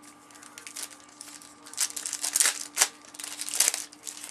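Cellophane wrapper of a trading-card cello pack crinkling and tearing as it is handled and opened, in a run of irregular rustles that grow louder after about two seconds.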